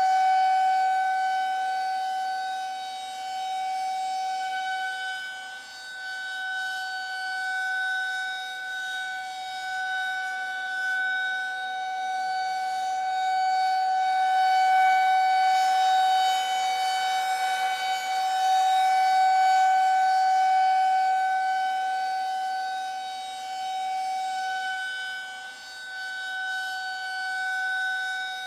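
Siren sounding one steady tone that does not rise or fall in pitch. Its loudness slowly swells and fades every several seconds.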